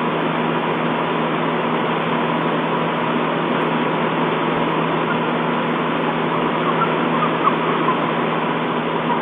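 Steady hiss from a webcam's audio feed, with a low electrical hum and a constant high whine, and a few faint short chirps about seven to eight seconds in.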